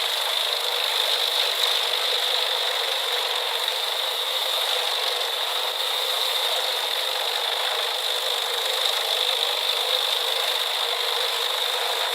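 Pezzolato industrial drum wood chipper running: a steady mechanical rattle with a high whine.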